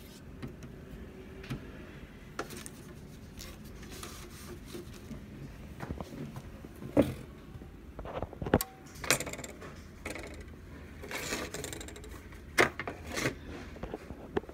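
Scattered light clicks, taps and scrapes of handling, with two sharper clicks about seven and eight and a half seconds in, and a short rustle a little later.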